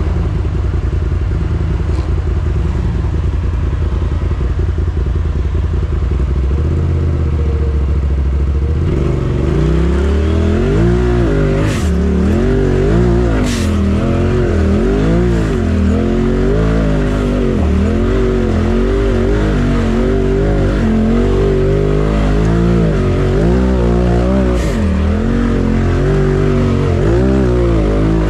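Side-by-side UTV engine idling steadily, then from about nine seconds in revving up and down over and over as it is driven over rough trail. A few sharp knocks cut through, twice a little past the middle and once near the end.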